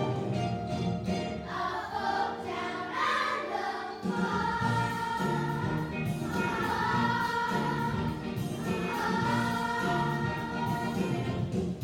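A children's chorus singing a stage-musical number with instrumental accompaniment, with long held notes in the second half.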